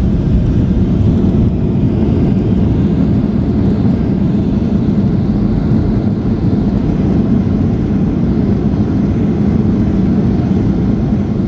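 Jet airliner heard from inside the cabin during landing: a steady, loud, low rumble of engine and airflow noise.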